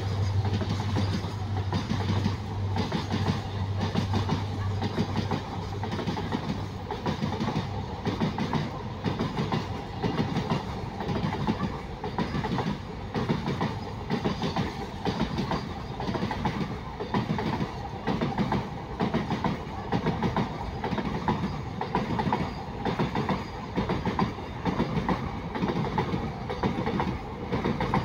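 Container wagons of a freight train rolling past, their wheels clattering rhythmically over the rail joints. A low steady hum underneath stops about six seconds in.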